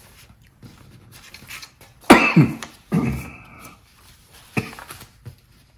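A sheet of paper being handled and folded into a paper airplane: soft rustling broken by sharp crackles and crinkles as the paper is lifted and bent. The loudest crackle comes about two seconds in, with others near three and four and a half seconds.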